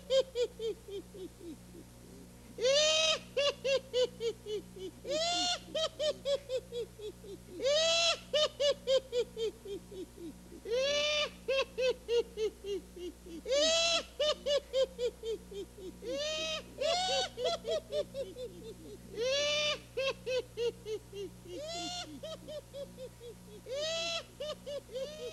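Spooky Halloween sound effect playing on a loop: a loud cry that trails off into a falling, quickening series of short 'ha'-like pulses, repeated about nine times at steady intervals of roughly two and a half seconds.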